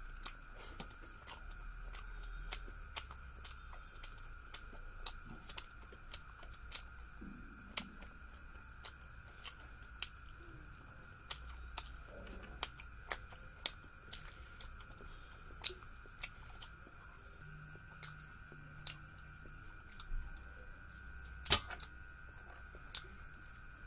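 Close-miked eating sounds: irregular wet mouth clicks and lip smacks, about one or two a second, as a man chews rice and fish eaten by hand, with one sharper click near the end. A faint steady high whine runs underneath.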